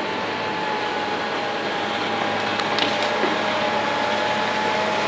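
Tracked Cat excavator running steadily with a high whine as its grapple handles a felled tree trunk; a short sharp crack of wood about two and a half seconds in.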